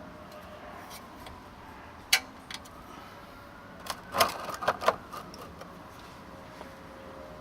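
A few sharp metallic clicks and clinks from hand tools and parts being handled while the transmission drain bolt is refitted: one about two seconds in, then a quick cluster about a second later.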